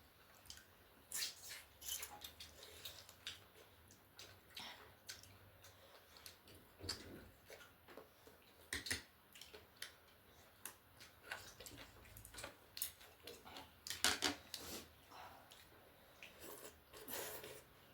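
Close-up eating sounds from a bowl of chicken thukpa noodle soup and chicken wings: irregular, faint wet smacks, slurps and chewing clicks, with a short cluster of louder ones about two-thirds of the way through.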